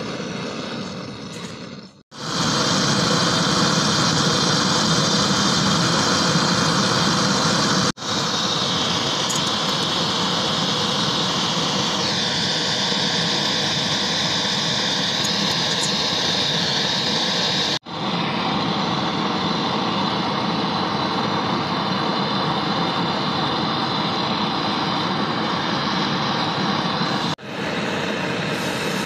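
Gas torch flame burning with a steady rushing noise while heating small steel screws red-hot. The sound stops abruptly and resumes several times.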